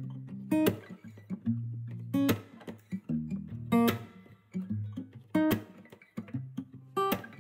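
Background music on acoustic guitar: a steady plucked pattern with an accented note about every second and a half over held low notes.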